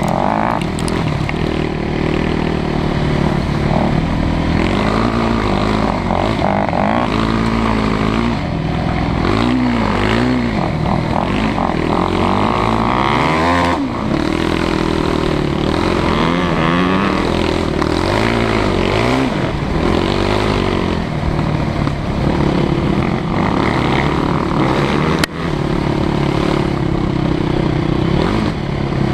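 Quad (ATV) engine running hard on a muddy dirt trail, the revs repeatedly rising and falling as the rider works the throttle and shifts. A single short knock comes late on.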